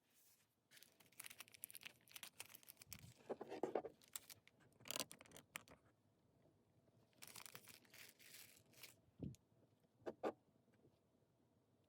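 Faint scraping and brushing from hands working with art materials on a canvas, with a few soft clicks scattered through.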